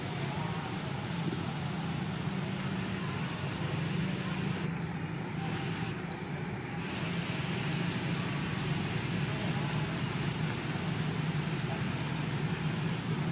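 Steady outdoor background noise with a constant low hum, holding level throughout, and a few faint clicks in its second half.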